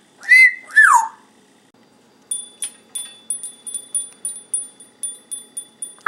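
African grey parrot gives two short whistles, the second sliding down in pitch. Then a small metal cage bell is struck over and over, ringing about three times a second.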